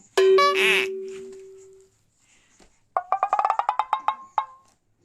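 Cartoon-style comedy sound effects. A sudden twanging tone rings and fades away over about two seconds, then a fast run of about a dozen clicking, wood-block-like notes climbs in pitch.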